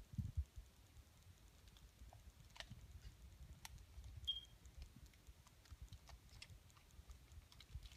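Near silence with low handling noise and a few faint, scattered clicks, and one brief high squeak about four seconds in.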